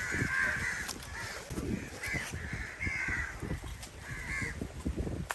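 Crows cawing repeatedly, about five harsh caws spread over a few seconds.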